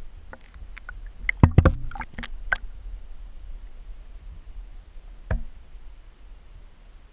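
Sharp clicks and knocks heard underwater through a submerged camera, a quick cluster in the first few seconds and a single one about five seconds in, over a low steady rumble.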